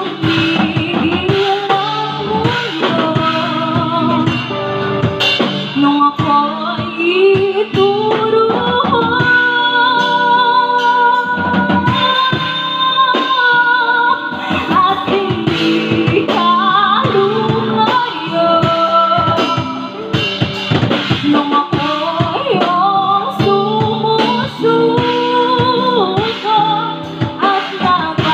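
Live band playing: a woman singing into a microphone over a drum kit and guitar, amplified through a PA speaker.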